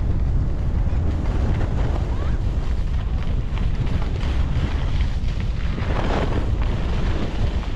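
Wind buffeting the microphone while skiing, a steady low rumble with a rough hiss above it.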